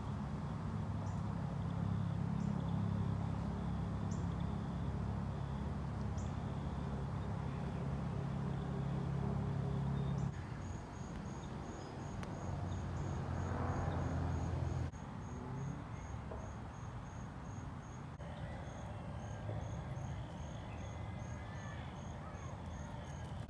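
Insects chirping in a high, even pulse of about two chirps a second, against a low steady hum that stops about ten seconds in.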